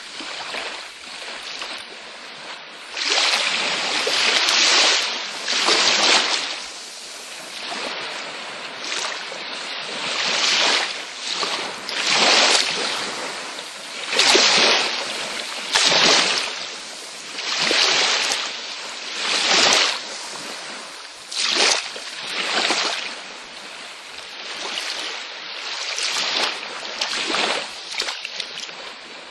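Small waves breaking and washing up a beach, a hissing rush that swells and fades every second or two.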